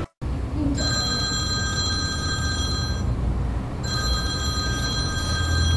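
Telephone ringing twice, each ring a steady tone lasting about two seconds, with a short pause between.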